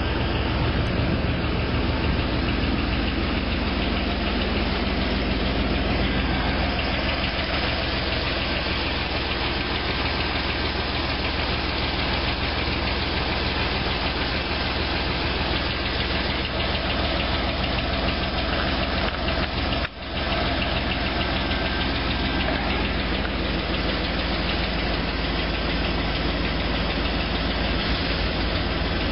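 C5 Corvette Z06's LS6 V8 idling steadily with a knocking from the cylinders: piston slap, pistons rocking in their bores.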